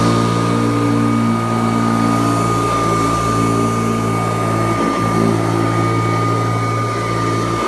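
Kirby Classic III upright vacuum cleaner running steadily, its motor giving a constant high whine over a low hum, with a brief dip about five seconds in.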